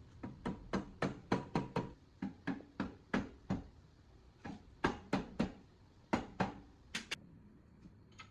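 A rapid series of sharp knocks, about three a second, coming in three runs with short pauses between them.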